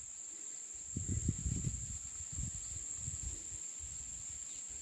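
A steady, high-pitched insect call, with low rumbling on the microphone for a couple of seconds starting about a second in.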